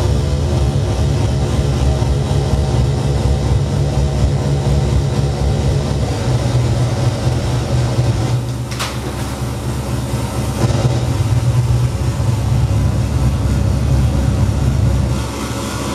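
Loud, steady amplified drone with a deep hum and several steady low tones layered over it. A brief high, falling swish cuts through just before nine seconds in.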